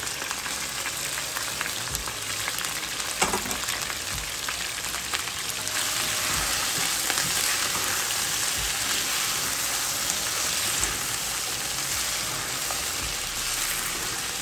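Chicken pieces sizzling in hot oil in a frying pan as they are sautéed with whole spices and stirred with a spatula: a steady frying hiss that grows a little louder about six seconds in. One sharp knock about three seconds in.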